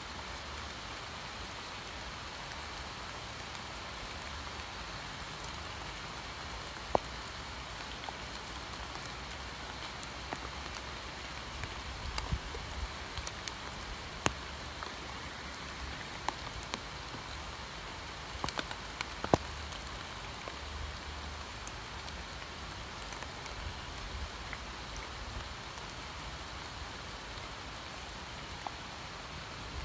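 Steady rain falling, an even patter with a few louder single drops striking close by now and then.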